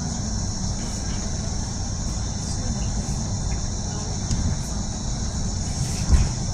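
Cabin noise of a Mercedes-Benz Citaro G articulated bus driving along a city street: steady low engine and road rumble under a constant high hiss, with a single thump near the end.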